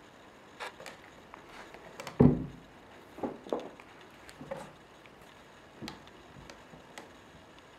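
Bengal kittens playing with a feather wand toy: scattered knocks and thumps as they pounce and bat at it, bumping the carpeted cat tree and the wooden cabinet, with the loudest, deep thump about two seconds in.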